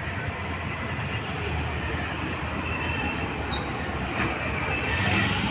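A steady mechanical rumble with a strong low hum and an even hiss over it, growing a little louder near the end.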